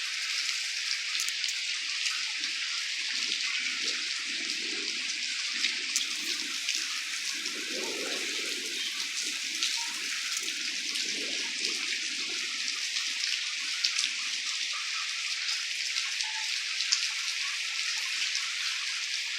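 Steady rain falling, an even hiss with scattered drops ticking and splashing. A faint low rumble swells and fades in the middle.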